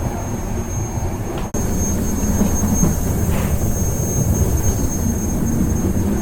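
Train carriage rumbling along the rails, heard from on board: a steady low rumble with a thin high whine over it. The sound cuts out for an instant about a second and a half in.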